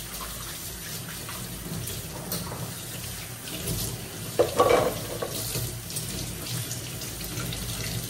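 Kitchen tap running steadily into a stainless steel sink as dishes are rinsed under the stream, with a brief louder clatter of dishes about halfway through.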